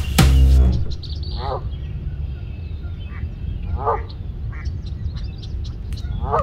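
The music cuts out under a second in, leaving ducks quacking: about five short calls spaced a second or so apart, over a steady low rumble of wind on the microphone, with faint small-bird chirps.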